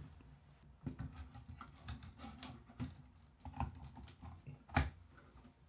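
Irregular clicks and knocks of a graphics card being fitted into a PC case and seated in its slot, with one louder knock near the end.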